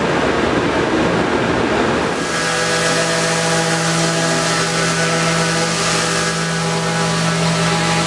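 Woodshop power-tool machinery running: a rough, noisy rumble, then from about two seconds in a steady motor hum with a high hiss.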